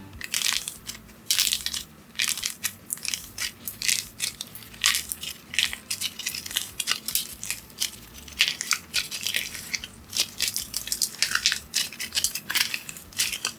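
Paper being handled and crumpled by hand: a quick, irregular run of crisp crackles.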